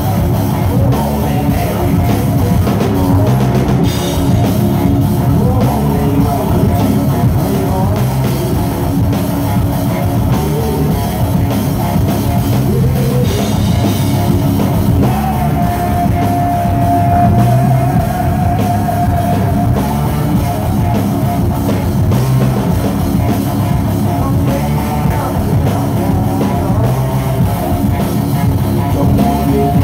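Live hard rock band playing loudly: electric guitars, bass and drum kit, with a male singer at the microphone. A long held note rings out about halfway through.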